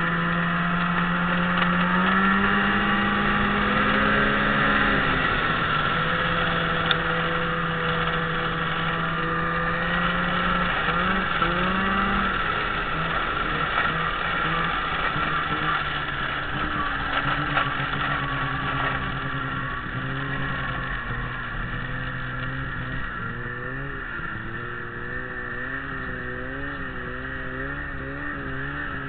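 Ski-Doo Summit 600 SDI snowmobile's two-stroke engine running under way, its pitch rising and falling again a few seconds in and blipping briefly about eleven seconds in. Over the last third it runs lower and a little quieter, its pitch wavering.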